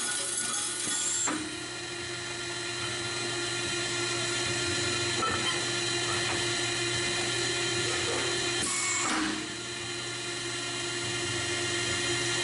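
C8H ChamferMate pipe beveling machine's 20 HP hydraulic power unit running steadily, a hum with several fixed tones. A brief sharp noise about a second in and another about nine seconds in are each followed by a drop in level, as the unit shifts between clamping and idling while the pipe is turned end for end.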